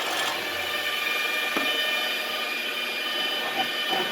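Electric mag drill motor, rigged as a lathe, running with a steady whine as it spins a brass rod whose end is being countersunk with a carbide-insert countersink.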